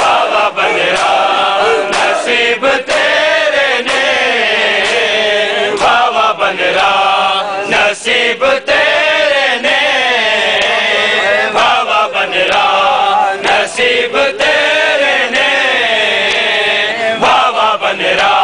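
A large crowd of men chanting a noha, a Muharram lament, together in unison. Sharp slaps of hands striking bare chests (matam) cut through the chant now and then.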